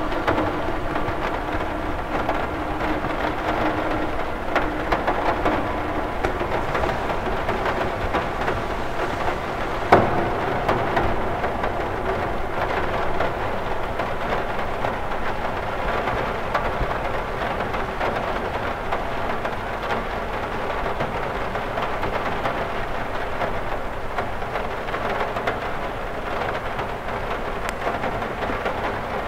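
Steady rain falling on a cathedral window, with one sharper knock of a drop about ten seconds in.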